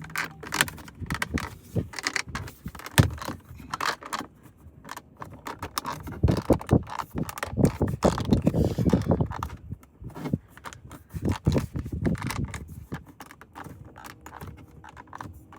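Hard plastic car interior trim being handled: irregular clicks, taps and scrapes as a trim insert is worked onto a worn interior door handle.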